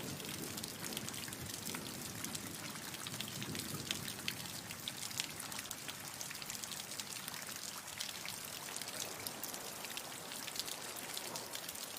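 Steady rainfall, with many individual drops pattering on a hard surface over an even hiss of rain.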